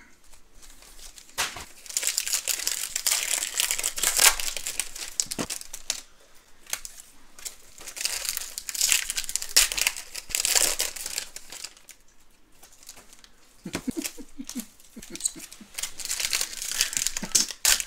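Trading-card pack wrappers being torn open and crinkled by hand, in three spells of loud crackling a few seconds apart.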